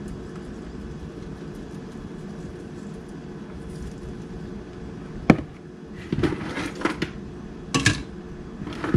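Crab shells being pried open and handled over a cooking pot: a sharp crack about five seconds in, then a run of clicks and clatters. A steady low hum runs underneath.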